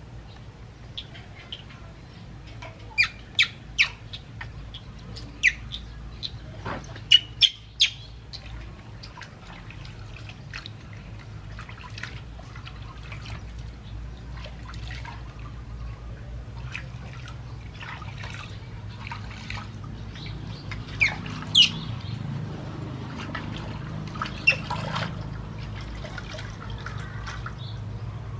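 Infant macaque giving short, shrill squeaks in two clusters, several in quick succession each time, as it is washed in a steel basin of warm water, with light splashing of water.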